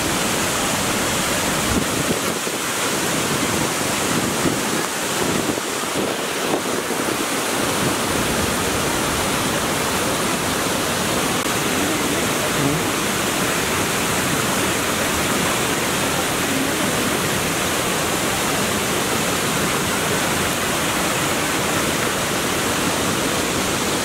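Waterfall cascade: water rushing steadily over broad rock slabs in a continuous, even rush.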